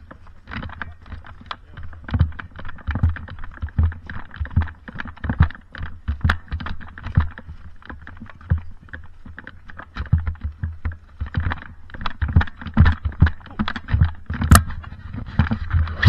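Irregular knocks, thumps and clicks close to the microphone, several a second, with a few sharper clicks near the end.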